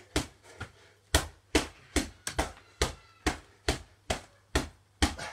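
Boxing gloves punching a heavy punch bag lying on the floor: a run of about a dozen hard thuds, roughly two or three a second, each a heavy blow.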